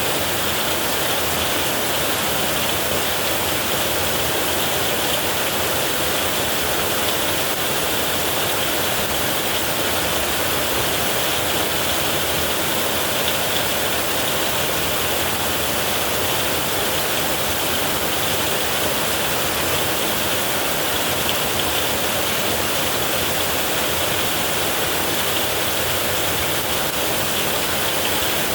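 Heavy rain drumming steadily on a tin roof, a constant dense hiss with no thunder and no change in strength.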